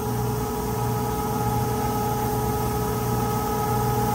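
Steady drone of running machinery in a ship's engine room: a constant low hum with several fixed tones above it and an even hiss.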